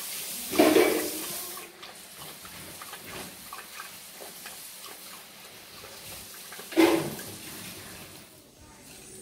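Jack Russell Terrier puppy lapping water from a metal bowl, with two louder sloshing bursts about half a second in and near seven seconds, each fading over about a second.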